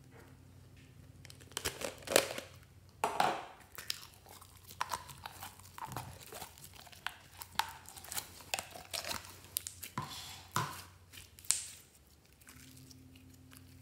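Pink slime squeezed out of a soft plastic pig-shaped container and worked by hand: irregular wet crackles, pops and squelches, starting about a second and a half in and stopping near the end.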